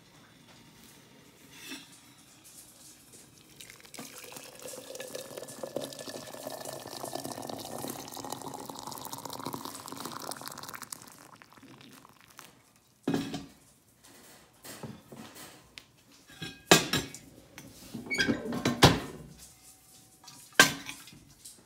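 Water pouring from a stainless steel kettle into a stoneware teapot, its pitch rising steadily as the pot fills. Then a run of sharp metal clanks and clinks as the kettle and the range cooker's hotplate lid are handled, the loudest of the sounds.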